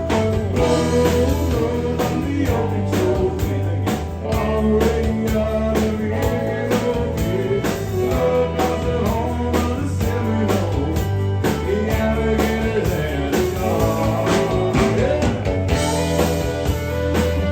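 Country band music: guitar over bass and a steady drum beat.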